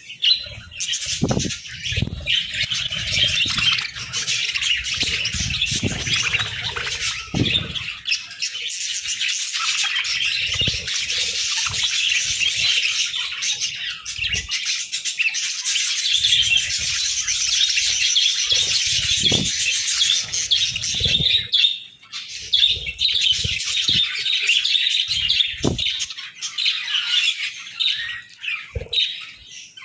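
Several budgerigars chattering and chirping continuously in a dense warble, with scattered low thumps that are heaviest in the first eight seconds.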